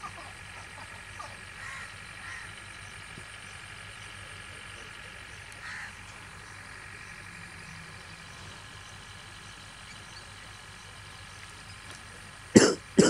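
Cast net being hauled out of a pond: two short, loud water splashes about half a second apart near the end, over a steady background hum with a few faint chirps earlier on.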